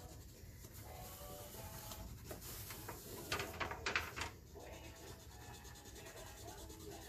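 Wax crayon scratching on paper in short strokes, with a quicker run of strokes around the middle.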